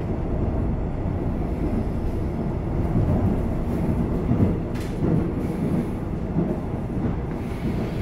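Steady low rumble of a Seoul Subway Line 1 electric train running, heard inside the passenger car, with one brief click about five seconds in.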